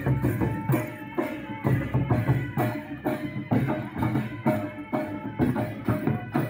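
Traditional Adivasi folk music: a large two-headed barrel drum (dhol) beaten in a steady, quick rhythm, with short held melodic notes above it.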